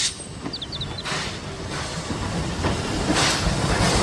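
Sound of a moving steam train: a steady hissing rush with rail rumble and a few louder surges, with a few brief high chirps about half a second in.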